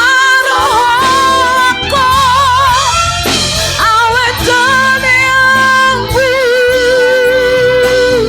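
Worship music: a solo voice sings long held notes with wide vibrato over a steady keyboard and bass backing with light drums, ending on one long held note.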